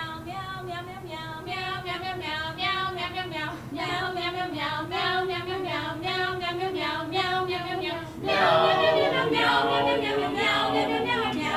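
A small group of young men and women singing a cappella with no accompaniment, in held notes. The singing gets fuller and louder about eight seconds in.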